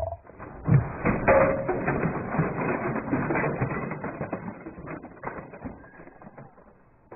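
Cartoon sound effect of dirt and debris bursting out, a sharp hit about a second in. It is followed by a long spell of small crackles and clicks as bits fall and scatter, fading away over several seconds.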